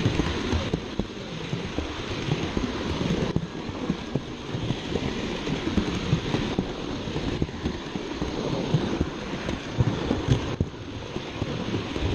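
Toy train rolling along its track, a steady clattering rattle with many small clicks from wheels and cars, shifting abruptly every few seconds.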